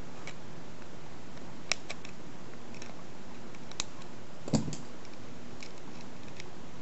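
Needle-nose pliers and a plastic junction box giving a few sharp clicks and taps as a nut on a fan adapter plug is worked loose, the loudest about two-thirds of the way through, over a steady faint hiss.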